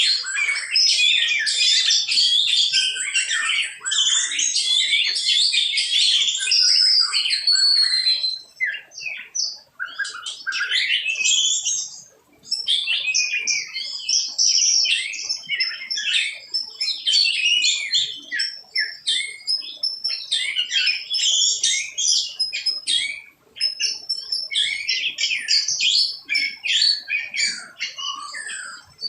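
Small birds chirping and twittering in quick, high calls. The calls are dense and overlapping at first, then come in shorter bursts with two brief lulls.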